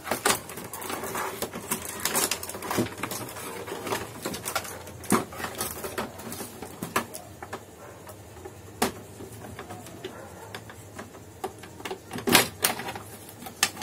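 Hard plastic scanner casing being pried apart and handled: irregular clicks and knocks as the shell panels flex, unclip and bump together. A few sharper knocks stand out, the loudest near the end.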